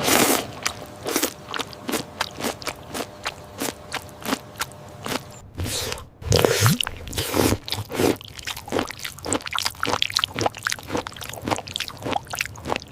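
Eating sound effects: crunchy chewing and biting, a quick run of sharp crackling clicks several times a second, with a louder burst about six seconds in.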